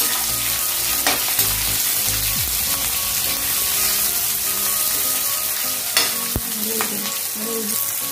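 Sliced onions sizzling as they fry in hot oil in a kadai, stirred with a ladle that knocks and scrapes against the pan a few times.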